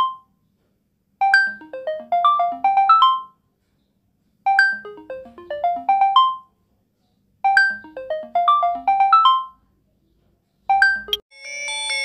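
LG Velvet 5G's incoming-call ringtone: a short melody of quick notes that falls and then climbs back up, repeating about every three seconds with silent gaps between. Near the end it cuts off mid-phrase and a different, denser chiming ringtone from a Prince PC16 feature phone starts.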